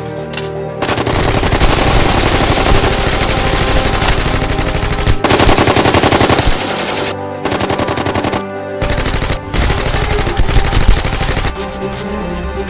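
Long bursts of rapid automatic gunfire over soundtrack music. The firing starts about a second in, breaks off briefly twice past the middle, and stops about a second before the end.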